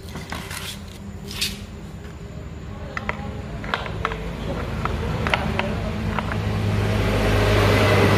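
A few light metallic clicks, then the motor of a handheld electric wood trimmer whirring and growing louder over the last few seconds, with a steady low hum.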